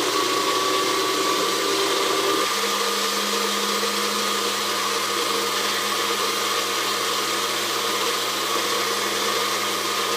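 Electric blender running steadily, its motor note dropping to a lower pitch about two and a half seconds in.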